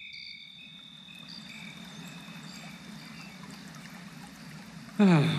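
Forest ambience of running water, with a steady high-pitched trill and scattered chirping calls over it. About five seconds in, a loud sound with a falling pitch sweeps down.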